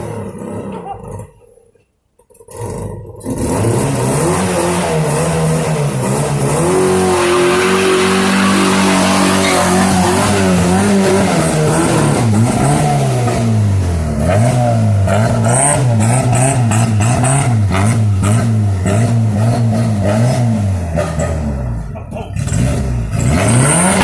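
Chevrolet Monza's four-cylinder engine revving hard. After a brief drop-out about two seconds in, it climbs and holds high revs, then is blipped up and down in quick rises and falls, dipping near the end before pulling up again.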